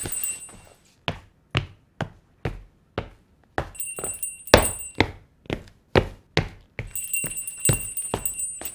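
Footsteps of shoes on a wooden floor, about two steps a second in an even walking rhythm. A high jingling tinkle comes and goes over them.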